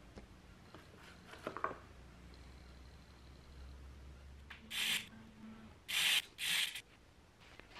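Handling noise: faint clicks, then three short, loud rustling bursts about five and six seconds in, as objects are moved by hand.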